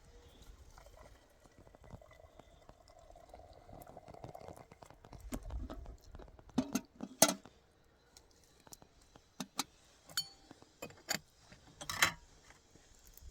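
Irregular sharp clinks and knocks of objects being handled, coming thickest in the second half, with two louder knocks.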